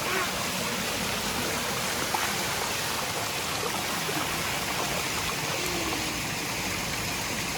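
Waterfall pouring into a swimming hole and over a rock slide: a steady, even rush of falling water.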